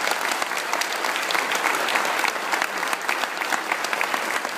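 Audience applauding, a dense steady patter of many hands clapping, with one pair clapping close by.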